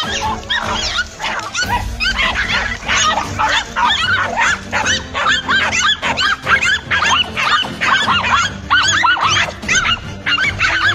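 Dogs barking and yelping rapidly, a continuous stream of short high calls with hardly a pause, with music underneath.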